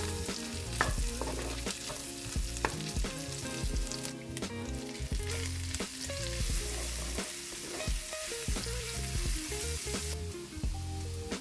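Food sizzling in hot oil in a frying pan, stirred with a utensil that clicks and scrapes against the pan now and then. The sizzle thins about ten seconds in.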